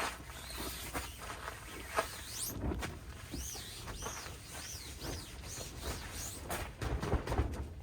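A bird calling: a run of high whistled notes, each rising and falling, repeated about every half second, over steady wind noise and a few light rustles and knocks.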